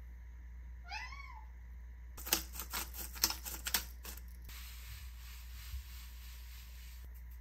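A few short rising chirps about a second in, then a quick run of sharp clicks as seasoning is shaken out over the bowl, followed by a steady hiss of salt pouring from a pouch onto shredded carrots.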